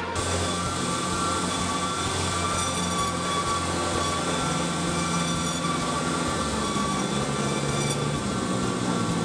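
Large industrial band saw cutting through thick steel stock under flood coolant: a steady mechanical drone with a low hum and several steady high tones over it.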